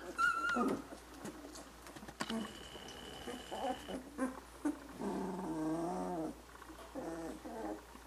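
Two-week-old Chinook puppies grumbling and squeaking: a short high squeak at the start, scattered short low grumbles, and a longer low grumbling growl about five seconds in that lasts just over a second.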